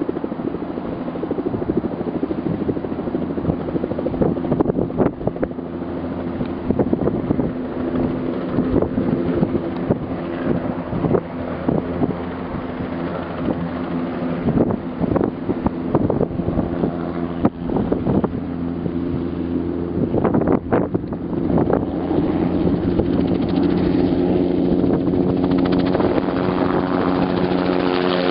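Bell 206B JetRanger II helicopter in low hover and climbing out, its Allison 250 turboshaft and two-blade main rotor running steadily. It grows louder over the last few seconds as it flies directly overhead.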